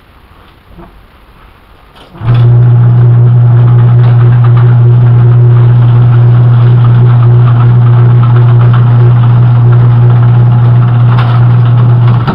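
Chevrolet Corvair air-cooled flat-six engine being cranked on its starter, a loud steady run that comes in about two seconds in, holds for about ten seconds and cuts off suddenly. It is trying to start but does not fire.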